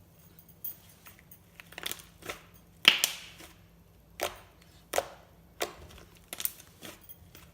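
Purple glossy slime being squished and poked by hand, giving a string of irregular clicks and pops, the loudest about three seconds in.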